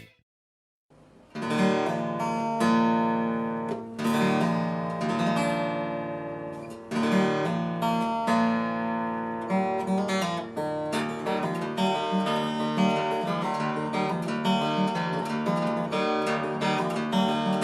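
Background music of strummed acoustic guitar, starting after about a second of silence.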